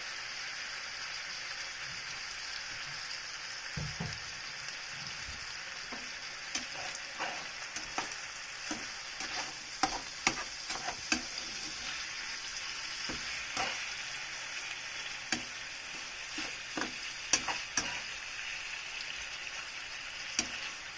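Chicken pieces with onion sizzling in a nonstick frying pan, with soy sauce and vinegar just added. A metal slotted spatula stirs and turns them, clicking and scraping against the pan from about six seconds in.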